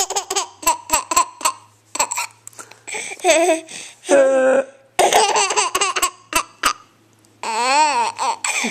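A baby laughing hard in repeated bursts at hiccups, with short sharp hiccup sounds in between and a brief pause about seven seconds in.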